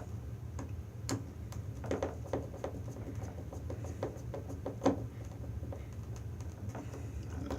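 Scattered light clicks and taps of a small plastic BNC video adapter and wire being handled while a stripped wire is pushed into its screw terminal, the sharpest tap about two-thirds of the way through, over a low steady hum.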